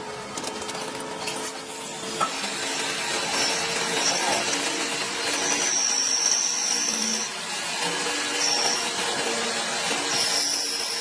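Friction welding machine running: a steady scraping, hissing rub of metal parts spun against each other under pressure, with a high squeal breaking in a few times, longest from about halfway through.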